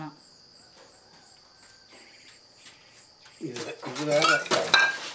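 Crickets chirring steadily with a fast, even pulse. Near the end a loud shout and sharp clinks of glass bottles break in.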